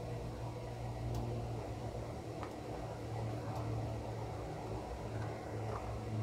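Steady motor hum and rumble of a running brass 0m-scale model locomotive, a Ge 4/4 III, on the layout, with a few faint clicks from the track.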